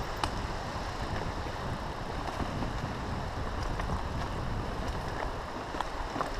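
Steady wind and tyre rumble on a rough dirt trail, picked up by a camera mounted on a moving bike, with a few light clicks and rattles.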